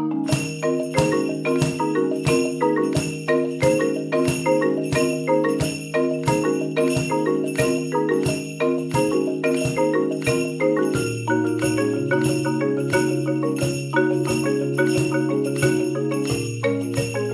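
Korogi marimba played four-hands by two players: a repeating pattern of mallet notes over a low bass line, with the bass notes dropping lower about eleven seconds in. Jingling bells keep a steady beat over it from the very start.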